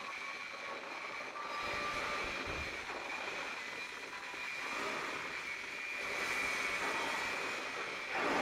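Press-type die spotting machine running, its hydraulics giving a steady high whine over a hiss while the upper platen swings over.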